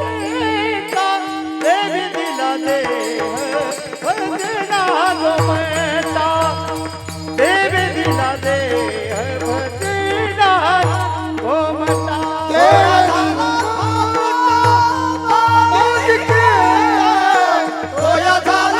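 Kirtan devotional music: a voice sings long, gliding, ornamented phrases over a steady drone. A low drum beat grows stronger about a quarter of the way in.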